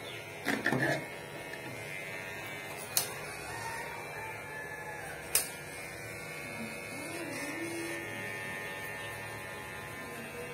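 A steady low electric hum, with a brief louder sound just after the start and two sharp clicks, one about three seconds in and one a couple of seconds later.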